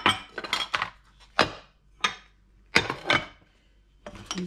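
Dishes being handled and set down on a stone countertop: a series of separate knocks and clinks of ceramic mugs, plates and a frying pan, about half a dozen with short pauses between.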